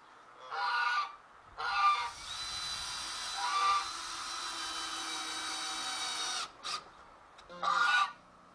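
Geese honking four times. Between the honks, a cordless drill runs steadily for about four seconds, then gives one short second burst.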